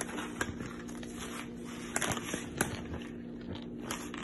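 Dry chunks of red clay crunching and crumbling between gloved fingers inside a plastic bag, with the bag crinkling; irregular crackles, a few sharper snaps about halfway through.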